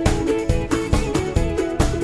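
Background music with a steady beat, about two strikes a second, under melodic notes.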